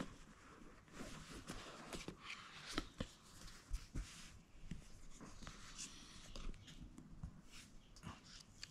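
Faint rustling, scratching and small clicks of an iPhone 14 Pro Max retail box and its packaging being opened by hand.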